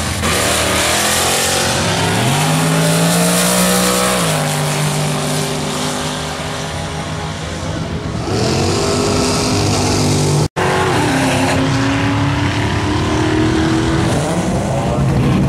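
Drag-racing cars accelerating at full throttle down the strip. The engine note climbs and holds through gear changes. A new run's engine climbs about eight seconds in, the sound cuts out for an instant about ten seconds in, and then another engine revs up.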